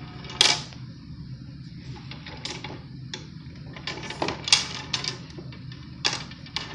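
Wooden beads on the wire bead maze of a wooden activity cube clacking against each other and the frame as they are slid along. Irregular clicks and knocks, one sharp one about half a second in and a quick cluster around four to five seconds in.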